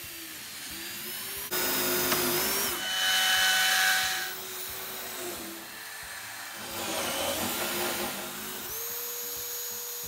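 Cordless drill spinning a hole saw that cuts through a wooden door, the motor whine rising and falling in several spurts and loudest from about two to four seconds in. Partway through, the hole saw is run in a bowl of water to keep it from overheating, and near the end it spins at a steady, higher whine.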